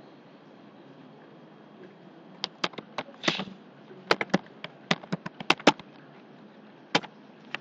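Computer keyboard keys clicking as a word is typed: a quick, irregular run of about a dozen keystrokes, then one more key tap near the end.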